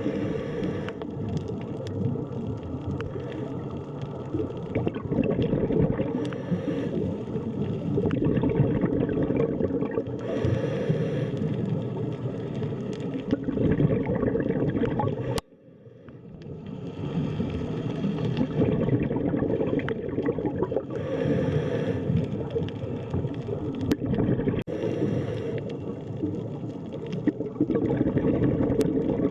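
Underwater sea ambience: a dense, muffled rumble and gurgle of water, with brighter hissing surges every few seconds. About halfway through it cuts out suddenly and fades back in.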